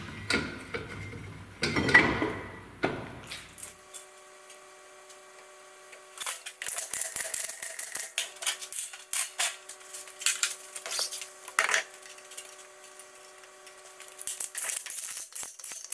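Hand tools and metal parts clinking and clattering irregularly during mechanical reassembly work, with a faint steady hum of several tones underneath from about four seconds in.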